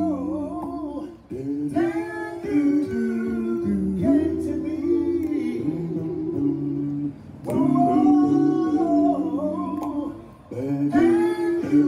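Male vocal group singing a cappella: a lead voice over sustained backing harmonies and a low bass part, in phrases separated by short breaks.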